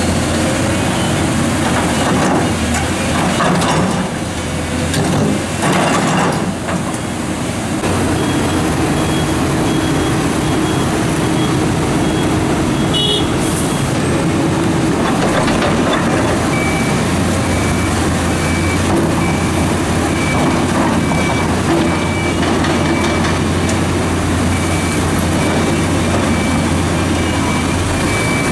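Diesel engines of a New Holland E385 crawler excavator and a dump truck running steadily, with rock knocking and scraping in the first few seconds. A reversing alarm beeps steadily from about eight seconds in, stops for a few seconds, then resumes at a lower pitch until the end.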